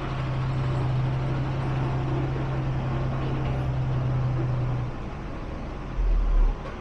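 Dump truck engine running with a steady low drone that drops away about five seconds in, then a brief low rumble near the end.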